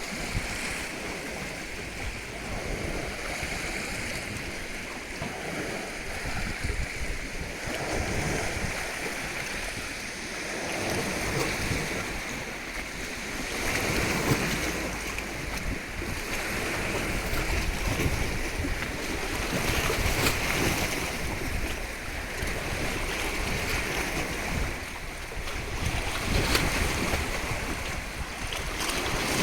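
Ocean surf: waves washing and breaking in a continuous roar that swells and eases every several seconds.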